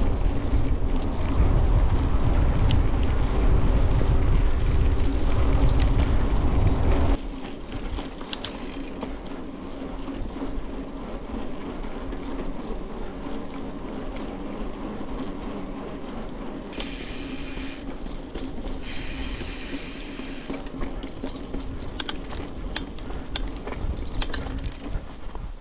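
Bicycle being ridden along a road. Wind buffets the microphone as a loud rumble for about the first seven seconds, then cuts off. Under it runs a steady tyre hum, and the rear freewheel ratchet ticks in two short spells while coasting.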